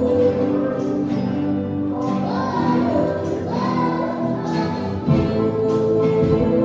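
A children's ukulele and guitar group strumming a song together, led by an acoustic guitar, with voices singing along.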